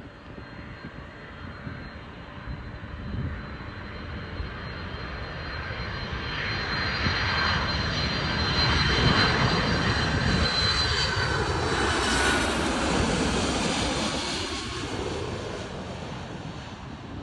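Twin-engine jet airliner passing low overhead on approach with its landing gear down: the engine noise and a high whine build over several seconds, peak, then fade as it moves away.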